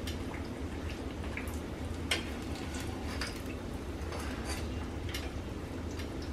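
Corn tortilla frying in a small pan of hot oil into a taco shell, the oil crackling and popping irregularly, with a sharper pop about two seconds in, over a low steady hum.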